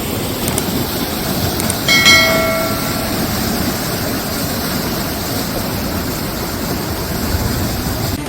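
Heavy rain and rushing floodwater, a steady loud hiss, with a horn sounding once for about a second about two seconds in.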